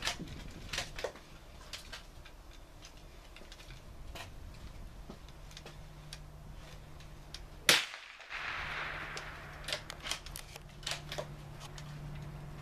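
Scattered sharp clicks and knocks as a Remington Nylon 66 rifle is handled. One much louder single gunshot comes about eight seconds in.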